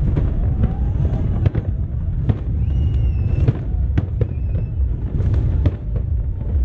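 Fireworks display: a rapid, irregular series of sharp bangs and crackles over a continuous low rumble, with a couple of brief whistling tones about three seconds in.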